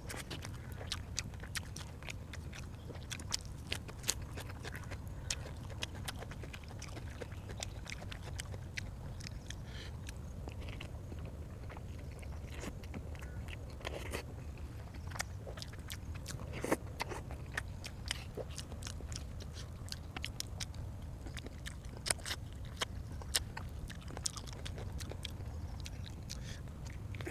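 A person chewing and biting food, with many short wet mouth clicks and smacks scattered irregularly, over a steady low hum.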